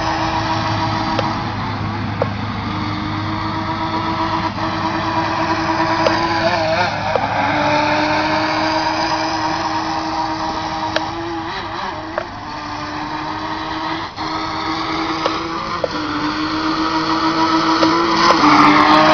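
Double Horse Killer Whale Racer 1:10 radio-controlled speedboat running flat out: a steady motor whine that holds its pitch for several seconds at a time and shifts slightly with the throttle. Near the end it grows louder with a rush of spray as the boat passes close.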